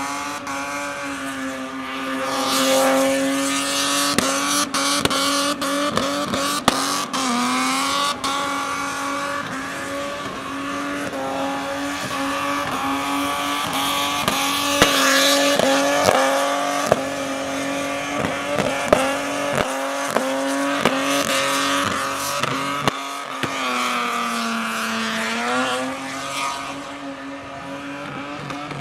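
Ford Barra 4.0-litre straight-six in a Falcon ute held at high revs through a burnout, the rear tyres spinning and squealing. The revs sag and climb back a couple of times, and sharp cracks punctuate the engine note.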